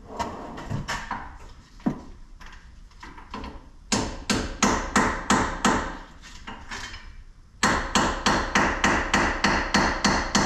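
Hammer tapping a new hub bearing assembly into the steering knuckle to work its bolt heads past the knuckle's lip. A few light taps come first, then steady strikes about three a second. After a short pause the strikes resume a little past two-thirds of the way in, with a steady noise underneath.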